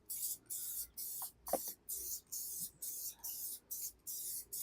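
Aerosol spray adhesive being sprayed in about a dozen short, quick hisses, two or three a second.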